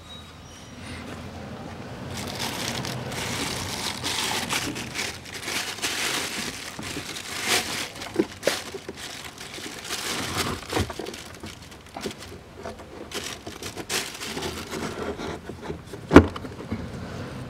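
A new carbon cabin air filter being slid and pushed into its housing in an Audi Q7: continuous rustling, crinkling and scraping of plastic and filter, with scattered light knocks and one sharp knock near the end.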